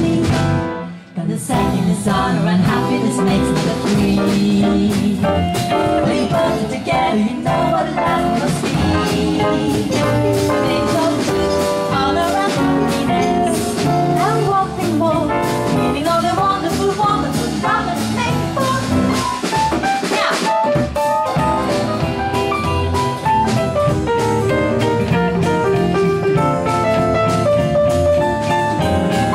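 Live small jazz band with two women singing together over archtop guitar, piano, upright bass and percussion, the band stopping briefly about a second in before playing on.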